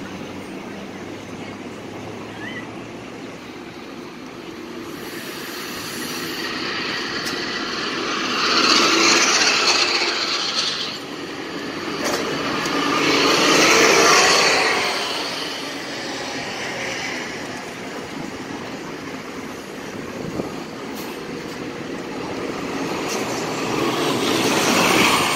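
City transit buses pulling away and passing close by. Engine and tyre noise swells and fades three times: about a third of the way in, around halfway, and again at the end.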